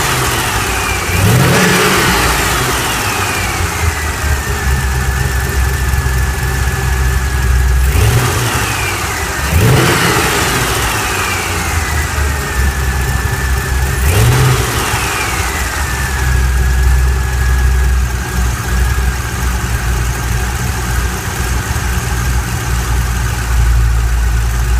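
Chevrolet LS7 7.0-litre V8 idling and blipped four times, with a high whine that climbs with each rev and falls back to a steady tone as the engine returns to idle. The whine appeared after a camshaft install.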